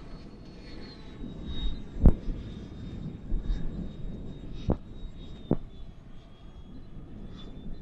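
Electric ducted-fan whine of a Freewing F-15 RC jet flying slowly on a landing approach, a steady high tone that drops slightly about a second in, over a low wind rumble on the microphone. Three sharp knocks cut through it.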